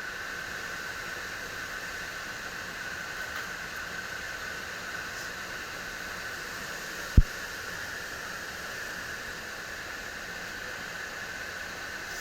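Steady airy hiss of a heat pump system's fan running, starting right at the beginning, with one sharp low thump about seven seconds in.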